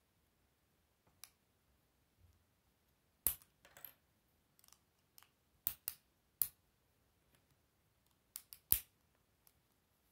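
Plastic K'Nex rods and connectors snapping together and clacking in the hands: irregular sharp clicks, the loudest a few seconds in, a few near the middle and one just before the end.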